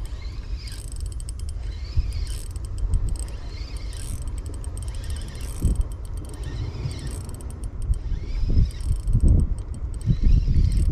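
A fishing reel being cranked in, its whir rising and falling about once a second with light clicking, over a steady low rumble.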